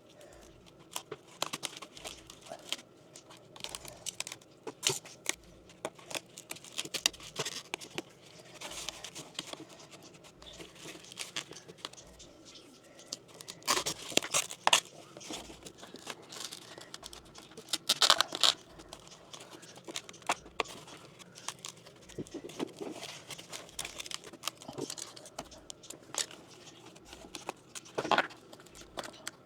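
Irregular handling noises from plumbing work: clicks, knocks, scraping and plastic crinkling as PEX pipe and fittings are handled. There are a few louder clatters near the middle and near the end.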